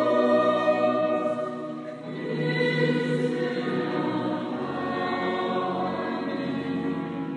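Mixed choir singing in harmony on long held chords, with a short break about two seconds in before the next chord is sustained.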